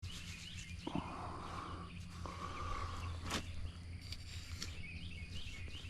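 A man breathing hard: two long, heavy breaths in the first three seconds, then a single sharp click. Faint chirping runs behind them.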